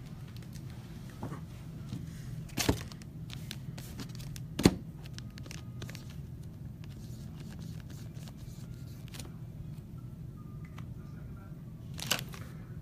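Trading cards and plastic card packaging being handled: light crinkling and tearing with many small ticks and three sharp clicks, over a steady low hum.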